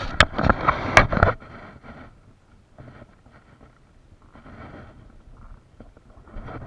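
Close handling noise: scrapes and knocks of hands and fishing gear against the plastic kayak, with a few sharp clicks, for about the first second. Then it drops to faint scattered rustles.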